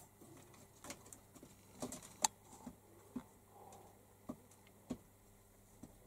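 Faint, scattered light taps and clicks, about ten of them, the sharpest a little past two seconds in, over a quiet room hum.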